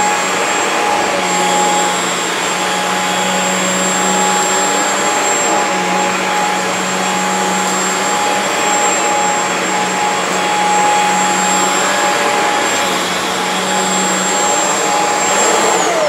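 Shark Stratos corded stick vacuum running on carpet as its brush roll picks up pet hair: a steady motor whine over the rush of suction. Right at the end the pitch starts to fall as the motor winds down.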